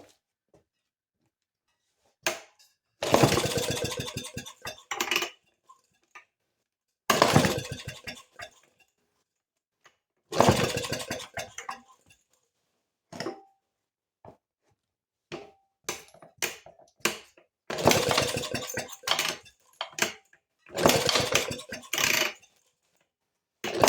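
1932 Maytag Model 31 single-cylinder two-stroke washing-machine engine being started after sitting for decades. It fires in rapid popping bursts of one to two and a half seconds, about six times, dying out between attempts each time.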